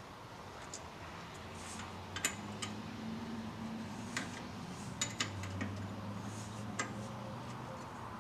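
Scattered metallic clicks and clinks of hand tools being handled and set against metal during brake work, about a dozen sharp ticks at uneven intervals. A low steady hum runs underneath from about two seconds in.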